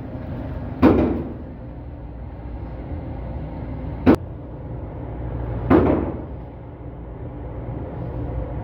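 Three gunshots at an indoor shooting range, about a second, four seconds and six seconds in, the first and last echoing briefly, over a steady low rumble.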